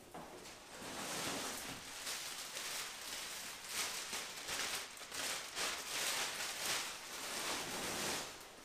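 Plastic packaging bag rustling and crinkling in surges as a floor mat is unwrapped from it, stopping shortly before the end.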